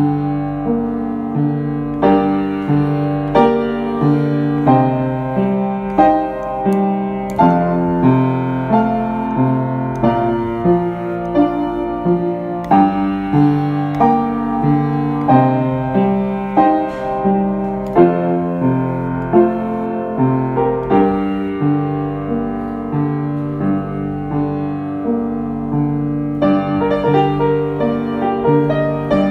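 Background piano music, slow and calm, with notes struck in an even rhythm of about one or two a second.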